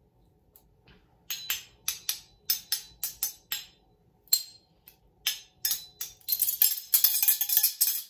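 A ring of metal measuring spoons struck one after another, first with a wooden stick and then with a butter knife: a run of sharp metallic tings about two to three a second, some ringing briefly, then a fast continuous jangle over the last two seconds.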